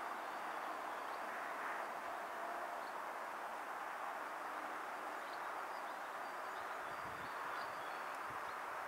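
Steady outdoor background noise in the middle range, with scattered faint, short bird chirps.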